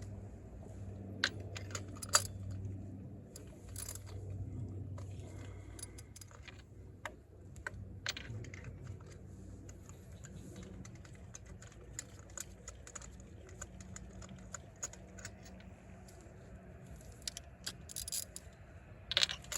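Irregular metallic clicks and clinks of hand tools (socket and ratchet) on the engine, with a quick cluster of louder clinks near the end. A low steady hum underlies the first few seconds.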